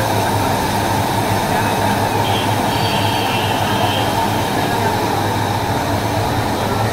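Row of high-flame gas burners under cooking pans running steadily, a constant rushing noise with a low hum beneath it. Faint metal scrapes of ladles and tongs on the pans come in the middle.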